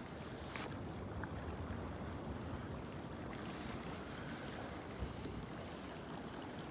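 Strong wind buffeting the microphone as a steady low rumble, with a few faint clicks.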